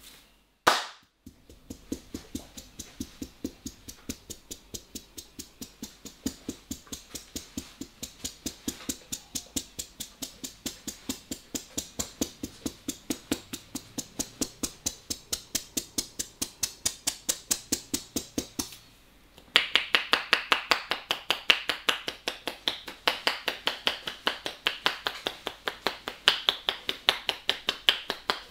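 A massaging barber's hands strike in a fast, even rhythm of percussive massage blows, about four a second, after one louder slap at the start. After a brief pause the blows resume louder and sharper.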